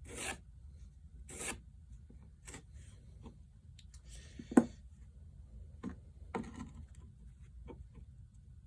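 Pencil marking out on a piece of wood: a few short scratchy strokes with pauses between, and one sharp knock about four and a half seconds in.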